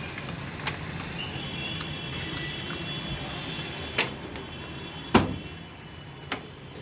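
A few sharp clicks and knocks, four in all with the loudest about five seconds in, over a steady low hum.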